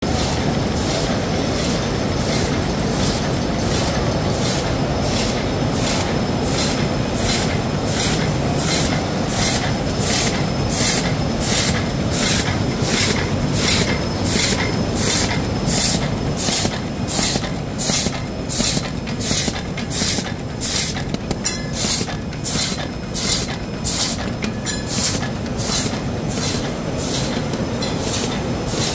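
Three-dimensional box folder gluer machine running: a steady mechanical clatter and rumble of its feeder, belts and rollers. Over it a short sharp hiss repeats about twice a second, in time with the machine's cycle.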